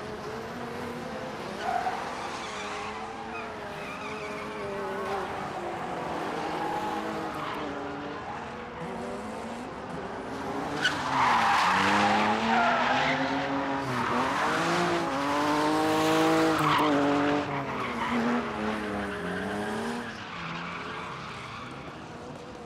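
Car drifting in clouds of tyre smoke: the engine revs up and down again and again while the tyres squeal, louder from about eleven seconds in.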